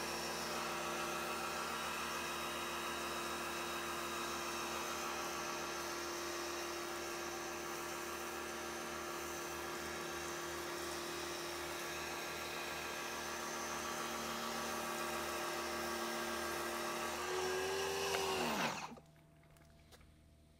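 TEANDE 1800 W electric pressure washer's motor and pump running with a steady hum and the hiss of the spray while it siphons soap through the black soap tip; it sounds almost like it is cavitating, as if still trying to build pressure. About two seconds before the end the pitch drops and the motor stops.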